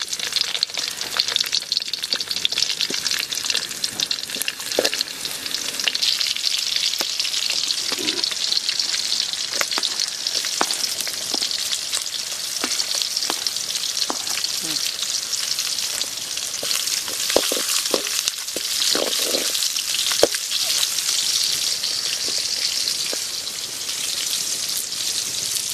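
Green chillies and onion sizzling steadily in oil in an aluminium pan over a wood fire, with scattered clicks and knocks of a metal slotted spoon stirring against the pan.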